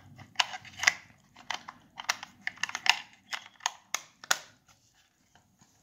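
Irregular sharp clicks and taps of hard plastic, about a dozen over four seconds, as fingers work the hinged flap on the underside of a Sega Genesis-style plastic Raspberry Pi case. The clicking stops a little before the end.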